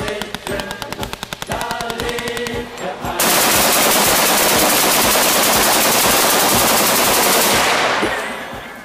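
Semi-automatic AK-pattern rifles being bump-fired in rapid strings. Fast shots come in quick succession for the first three seconds. From about three seconds in, a long unbroken burst is so loud that the shots merge into a steady wall of noise, which dies away near the end.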